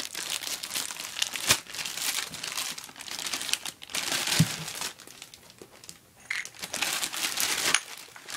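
Clear plastic bag and bubble wrap crinkling as they are handled and wrapped around an object. There is a sharp click about a second and a half in and a dull knock about four and a half seconds in.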